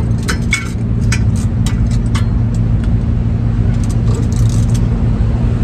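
Irregular sharp clicks of a socket ratchet and wrench tightening a bolt on the rear brake assembly, over a steady low mechanical hum.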